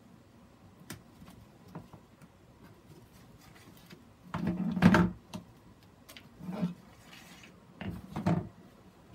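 Gloved hands handling a plastic grid mounting board and a sphagnum-moss ball: faint clicks and rubbing, with a louder burst of scraping and knocking a little past the middle and two shorter ones near the end.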